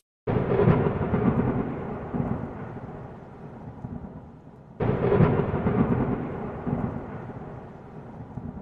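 Two deep, thunder-like rumbling booms from an intro sound effect: the first strikes just after the start and the second about five seconds in, each hitting suddenly and dying away over about four seconds.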